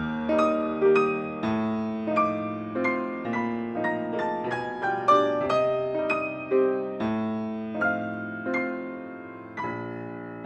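Background music: a gentle solo piano piece, notes struck one after another at an unhurried pace and left to ring.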